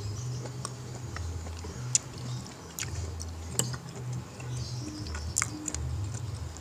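A few sharp, light clicks and taps over a low humming rumble that comes and goes.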